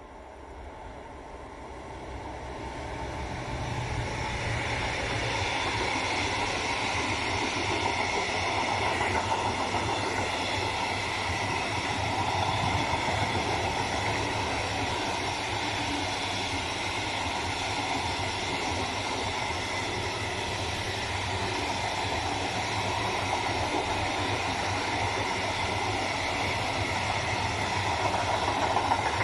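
Freight train hauled by an electric locomotive, growing louder over the first few seconds as it comes close, then its loaded open coal wagons rolling past steadily, wheels running on the rails.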